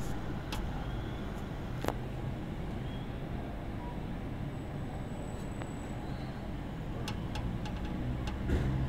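Steady low rumble of distant urban traffic. A few short sharp clicks sound over it, one about two seconds in and a cluster near the end.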